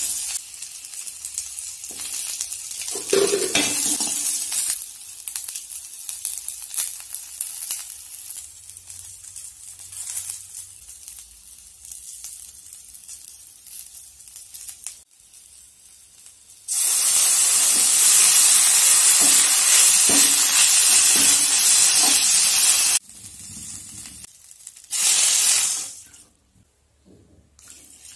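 Shallots frying in hot oil in an aluminium pan, sizzling while a perforated metal spoon stirs them. About seventeen seconds in, a much louder sizzle starts abruptly and stops about six seconds later, and a shorter loud burst follows near twenty-five seconds.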